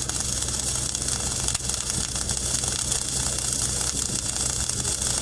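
Steady crackling hiss of arc welding over the low, even drone of a running engine.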